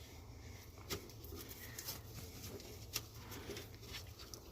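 Faint clicks and light knocks from a Jeep Wrangler JK door and its hardware being handled, the sharpest about a second in and about three seconds in, over a low steady hum.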